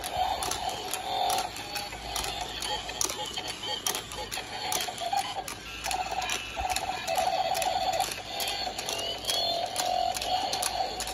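Battery-powered Spider-Man octopus dancing robot toy playing its built-in electronic tune through a small, tinny speaker. Its motor, gears and plastic legs click and rattle as it dances.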